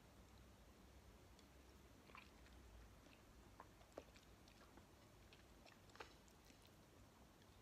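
Faint, close-up chewing of soft jelly and gummy candy, with a few small wet clicks from the mouth.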